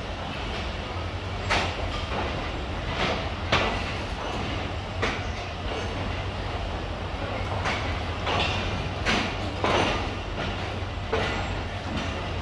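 Passenger train pulling slowly out of the station: a steady low rumble with the wheels clicking over rail joints every second or so, sometimes in quick pairs.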